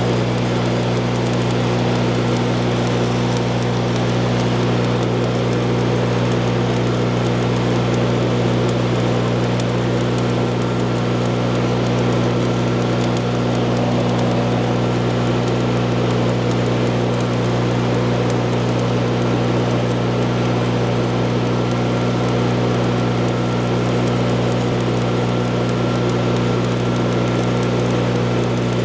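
Stick-welding arc crackling and sizzling steadily as a bead is run, without a break, over a steady low hum.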